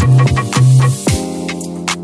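Background music with a programmed drum beat over a deep bass line, with a short hiss swell about halfway through.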